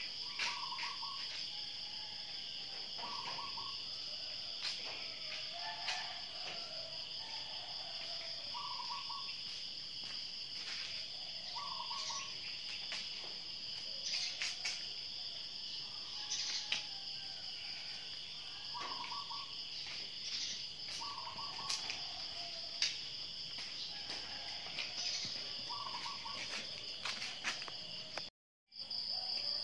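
Steady high-pitched insect chorus, with a short animal call around the middle pitch range, falling at its end, repeating every few seconds. The sound cuts out completely for a moment near the end.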